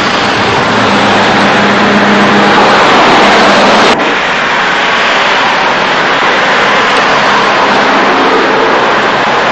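Road traffic: cars passing, a dense steady rush with a louder swell about three seconds in. The sound changes abruptly about four seconds in.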